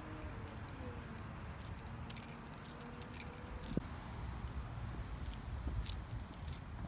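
Metal tags and leash clip on a standard poodle's collar jingling in small clinks, most of them in the last couple of seconds, with one sharp click a little past halfway, over a low steady rumble.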